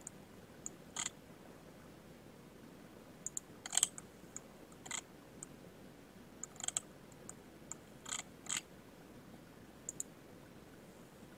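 Computer mouse buttons clicking at irregular intervals, a dozen or more sharp clicks, some in quick pairs, over faint room hiss.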